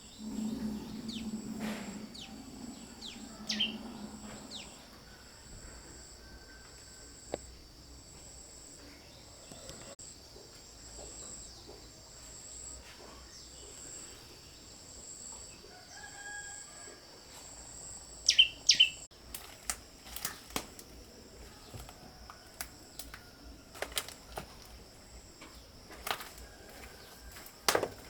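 Outdoor ambience: a steady high-pitched insect drone with a few short, sharp bird chirps. From about two-thirds of the way in come scattered clicks and knocks.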